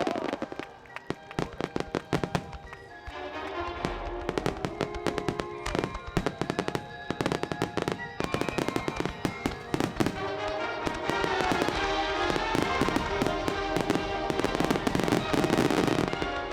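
Fireworks bursting and crackling in rapid, dense succession over music with held melodic tones.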